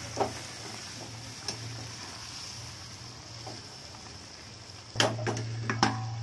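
Vegetable curry sizzling in a metal kadhai while a metal ladle stirs and scrapes through it, with a few light knocks against the pan; a little water has just gone in to let it cook soft. About five seconds in, a steel plate is set over the pan as a lid with several loud metal clanks, one ringing briefly.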